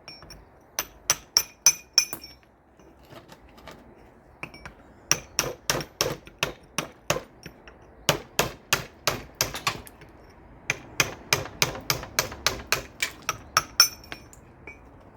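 Small hammer striking mortar on a brick in four quick runs of blows, about four a second, to knock the mortar out through the hole in a stand. Some blows ring briefly.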